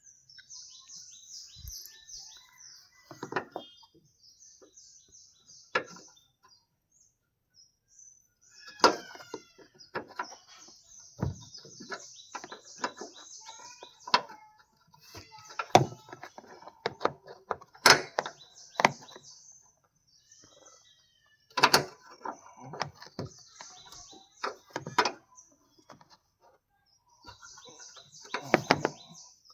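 Birds chirping in quick repeated notes, over irregular sharp metallic clicks and knocks from a spanner working a tight bolt under a car bonnet.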